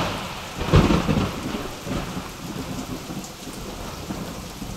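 A thunderclap about a second in, rumbling low, over steady heavy rain.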